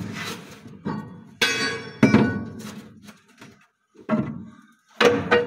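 A series of heavy metal knocks and thunks from the truck's gearbox and clutch parts as the splined gearbox input shaft is worked into place, one of them a ringing clang about a second and a half in.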